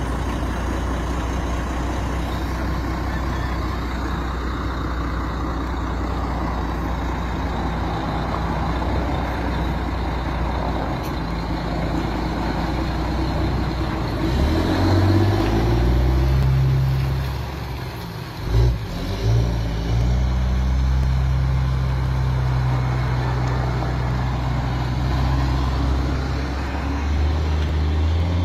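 Caterpillar C12 inline-six diesel in a tractor-trailer hauling about 50 tons, roaring as the rig pulls away under load. The engine note climbs, drops off about two-thirds of the way through, then pulls steadily again and rises near the end.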